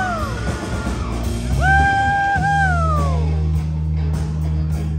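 Live rock band playing loudly. A high lead note scoops up, holds and then slides down, twice, over a held low bass note and the drums.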